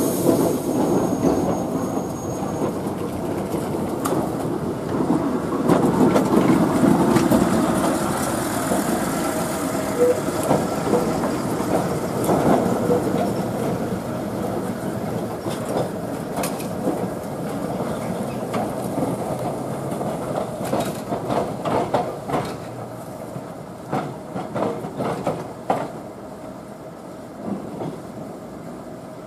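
Melbourne W6-class tram rolling along the track, its wheels rumbling with repeated clicks and clacks. It passes by and fades away over the last few seconds.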